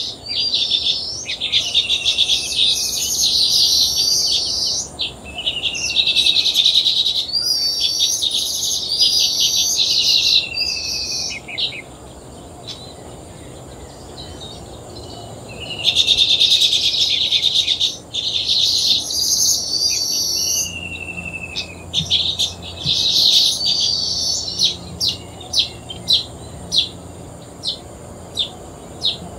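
Weaver birds chattering and singing: bursts of rapid buzzy chatter, many ending in a drawn-out falling wheeze, a quieter spell about halfway through, then short sharp tick-like calls near the end. A steady high tone runs underneath.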